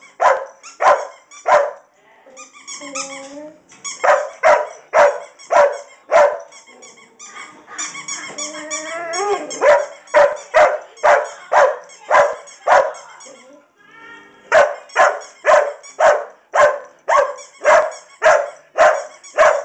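Irish Setter barking over and over, about two barks a second, in runs broken by short stretches of whining. This is demand barking: she wants her toy.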